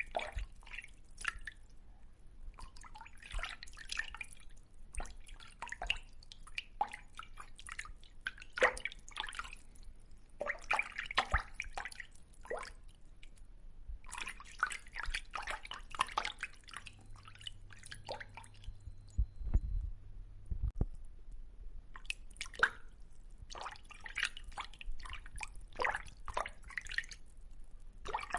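Water dripping and splashing in irregular clusters of small, sharp drips, broken by short pauses, with a few low thumps about two-thirds of the way through.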